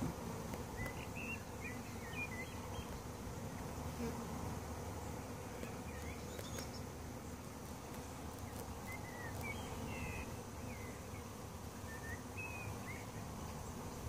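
A honeybee swarm humming steadily, the bees clustered and settling around the hive rather than moving in. A few faint short high chirps are scattered through.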